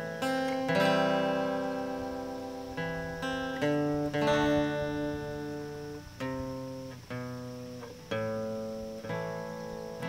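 Acoustic guitar music: a chord struck every second or so and left to ring out.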